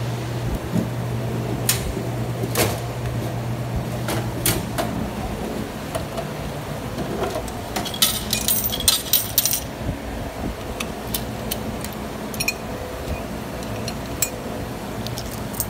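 Drink vending machine's elevator delivery mechanism at work. A steady motor hum for the first few seconds, then a series of sharp clicks and knocks, and a rattling clatter about eight seconds in as the bottle is delivered to the bin.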